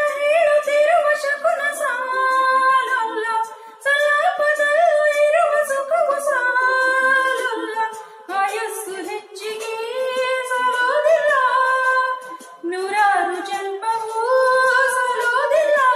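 A woman singing solo and unaccompanied into a handheld karaoke microphone, a single melodic line in phrases with short breaks about every four seconds.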